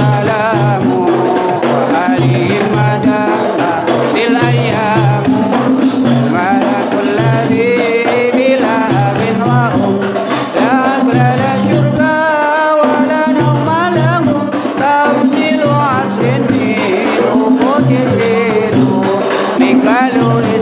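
Group singing of an Islamic devotional chant, accompanied by hand-struck frame drums and a low drum beating about twice a second, with jingling percussion.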